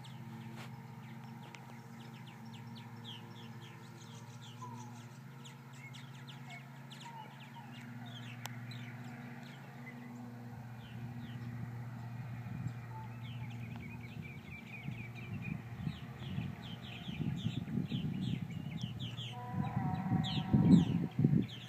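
A flock of purple martins calling as they circle overhead: a constant chatter of short, falling chirps. Underneath is a steady low hum, and a louder, uneven low rumble builds over the last few seconds.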